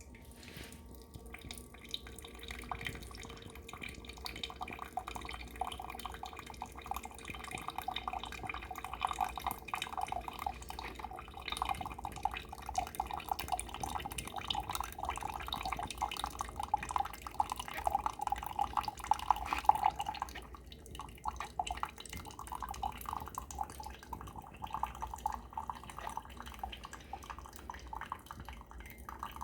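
Cuisinart 2-in-1 coffee maker brewing on its single-serve pod side: coffee streams and drips into the cup as a dense, rapid trickle. It starts about two seconds in, is strongest in the middle and drops briefly around twenty seconds in. This is a test brew that shows the pod side works.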